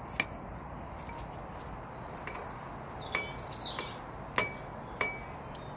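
Kitchen scissors snipping chili peppers into pieces over a ceramic plate: about half a dozen separate sharp snips, each with a short ring.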